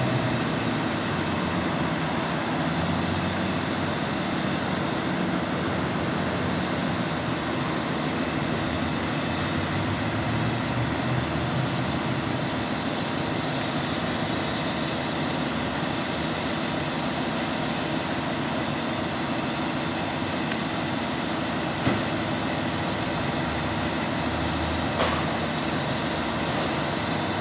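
Emergency vehicles' engines idling on scene, a steady unbroken hum, with a fire engine among them.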